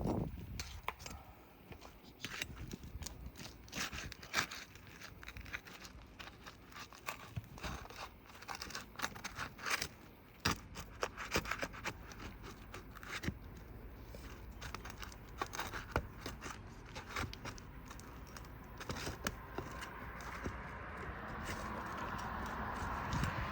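Irregular scraping and sharp clicks as asphalt roof shingles are pried at to work the top row of roofing nails loose. A steady hiss builds over the last few seconds.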